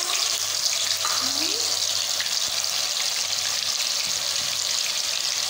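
Ground onion paste frying in hot oil in an aluminium pot: a steady, even sizzle.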